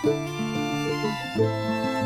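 Background music with bowed and plucked strings playing a slow melody.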